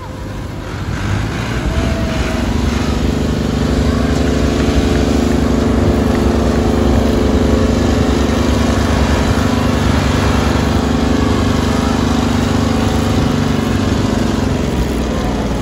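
A Ford 3610 tractor's three-cylinder diesel engine is pulling a loaded sugarcane trolley, mixed with a small motorcycle engine running close by. The engine noise builds over the first couple of seconds, then holds steady and eases slightly near the end.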